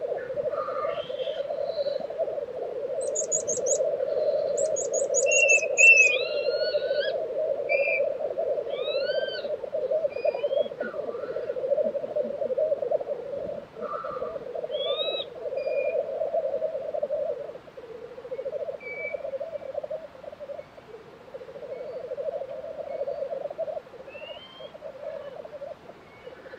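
Male black grouse at a lek keep up a continuous rolling, bubbling call. Brief higher calls of other birds break in over it, with quick high trills and rising whistled notes, most of them in the first half.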